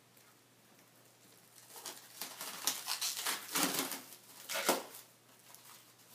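Plastic shrink wrap crinkling and tearing as it is pulled off a kit part. The sound is a run of crackling rustles starting about two seconds in, with the sharpest crackle near the end.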